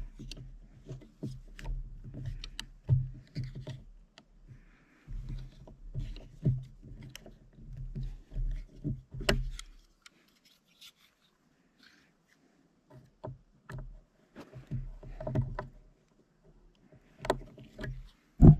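A small Phillips drywall screw being turned by hand into a 2x6 with a folding multitool's screwdriver: irregular clicks, creaks and scrapes of the metal tool working the screw in the wood, with a pause about two-thirds of the way through.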